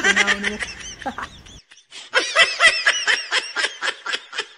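A woman laughing, then a long run of quick, high-pitched giggles, about five a second, easing off toward the end.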